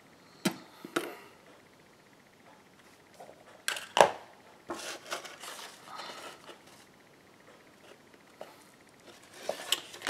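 Card stock being handled on a cutting mat: a few sharp taps and knocks as the panel is set down and picked up, the loudest about four seconds in, with brief paper sliding and rustling between.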